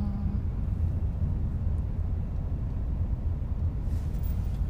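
Steady low rumble inside a moving car's cabin: engine and road noise.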